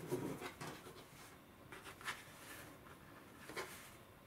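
Hands rubbing and smoothing cloth face towels on a table: soft brushing and rustling strokes, a flurry of them at the start, then a few single strokes.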